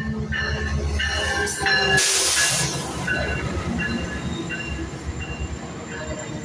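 Metrolink diesel locomotive and bilevel coaches rolling past close by as the train pulls into the station: a heavy low engine drone that fades after about two seconds as the coaches follow, a sharp burst of hiss about two seconds in, and short high metallic squeals on and off throughout.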